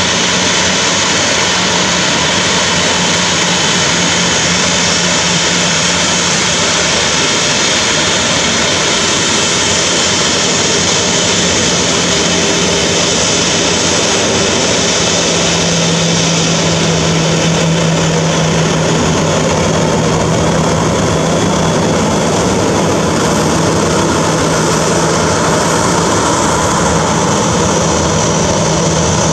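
Boeing 737-800's CFM56-7B turbofan engines running at taxi power, a loud steady jet whine and rush as the airliner taxis. A low hum in the engine sound drops slightly in pitch about halfway through.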